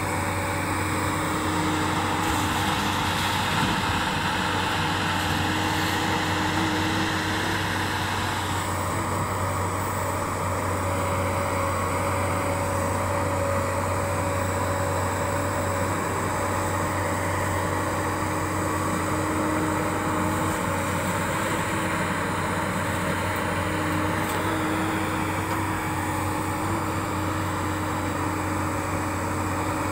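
JCB tracked excavator's diesel engine running steadily under working load as it digs, a constant low drone. A higher hiss rides over it for the first several seconds and drops away about eight seconds in.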